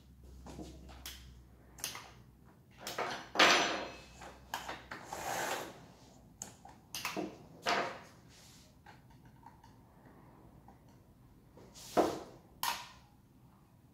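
Riwall electric chainsaw being handled during assembly: its metal chain rattling and sliding on the bar, with plastic and metal parts clicking and knocking in short, irregular clatters. The loudest clatter comes about three and a half seconds in and a sharp knock about twelve seconds in.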